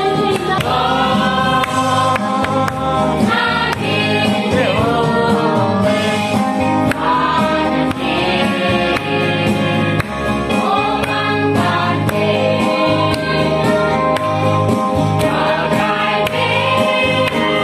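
A church congregation singing a gospel hymn together, with electronic keyboard accompaniment; the singing is loud and continuous.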